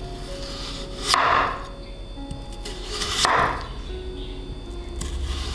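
Chef's knife cutting through a raw potato into a wooden cutting board, twice about two seconds apart: each stroke is a short slicing sound ending in a knock of the blade on the board. Background music runs underneath.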